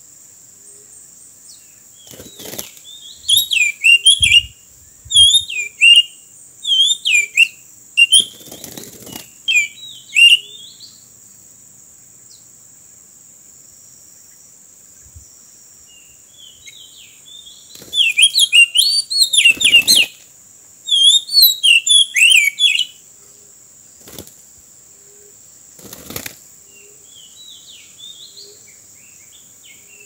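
Oriental magpie-robin song: two loud bouts of quick, varied whistled phrases, the first a few seconds in and the second about two-thirds of the way through, with a few soft phrases near the end. A steady high insect drone runs underneath, and a few brief sharp noises break in.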